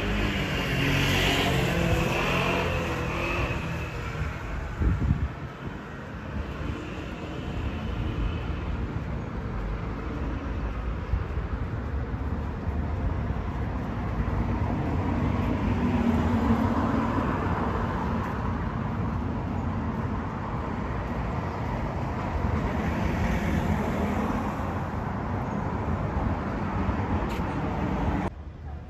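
Street traffic: cars passing one after another, their tyre and engine noise swelling and fading, with a brief thump about five seconds in.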